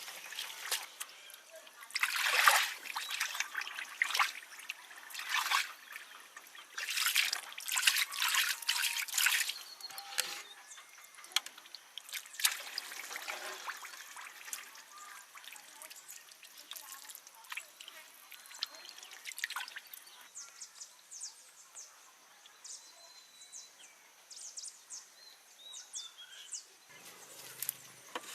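Water pouring and splashing in irregular bursts through the first half, then dying down to a faint trickle.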